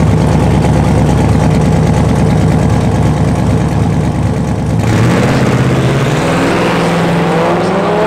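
427 cubic inch twin-turbo LS V8 of a 1961 Buick Skylark running loudly as the car rolls toward the start. About five seconds in the sound changes abruptly, and the engine's pitch then rises steadily as it accelerates.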